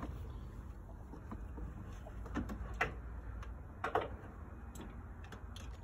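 Faint, steady low background rumble with a few soft clicks scattered through it.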